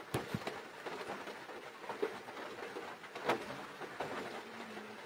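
Steady background noise inside a car cabin, broken by a few sharp knocks or clicks.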